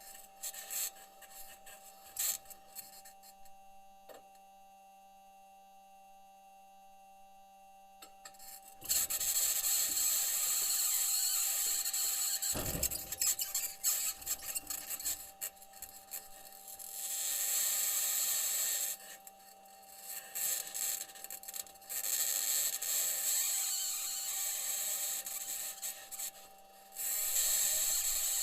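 Perseverance rover's aluminium wheels crunching and scraping over Martian rock as it drives, picked up by the rover's own microphone: harsh metallic scratching and rattling over a steady hum. Quieter for about the first nine seconds, then loud scraping that breaks off briefly twice.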